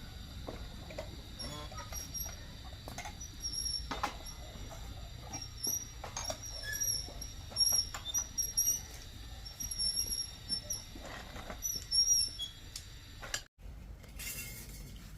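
Many short, high-pitched bird chirps, repeated irregularly over a low steady background hum, with scattered light clicks and knocks.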